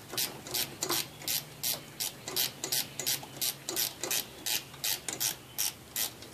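Ratcheting wrench clicking as it turns a bolt, in quick even back-and-forth strokes of about three a second.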